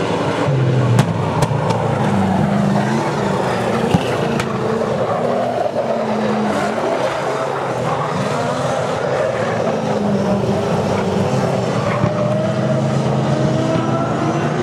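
Saloon race car engines revving as the cars race around a dirt speedway oval, their pitch rising and falling as they accelerate and lift through the turns. A few sharp clicks about a second in and again around four seconds.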